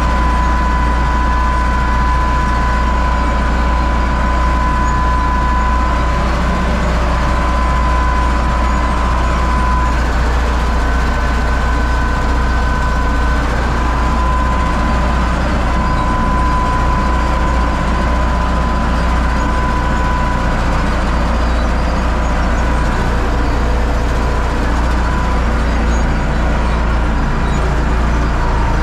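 UTB Universal 650 tractor's four-cylinder diesel running steadily, a deep drone with a thin high whine over it that drops out now and then.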